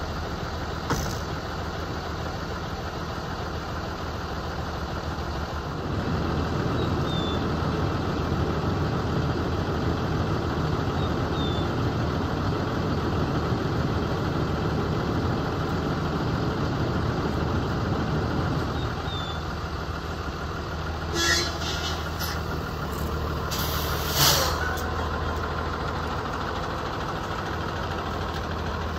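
School bus engine running steadily as the bus pulls away, growing louder about six seconds in and easing back near twenty seconds. Two short bursts of hiss come near the end.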